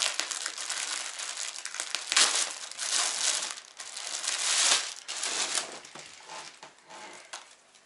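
Thin plastic packaging bag crinkling and rustling as folded clothes are unwrapped and pulled out of it, loudest in the middle and dying down over the last few seconds.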